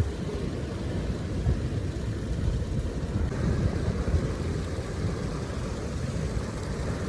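Steady low rumble of wind and rough sea surf, with no distinct strokes or tones.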